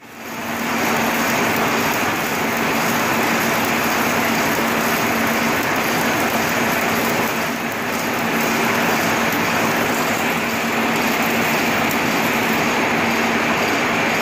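Stick welding arc crackling steadily as an electrode burns during an overhead weld, with a faint steady low hum underneath.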